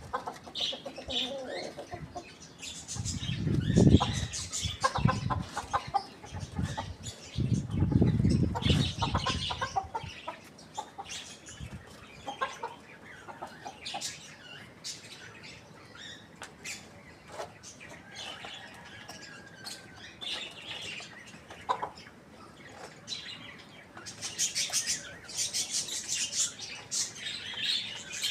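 Chickens clucking and calling while feeding, with short sharp clicks throughout. Two loud bursts of wing flapping come about three to five seconds in and again around eight to ten seconds.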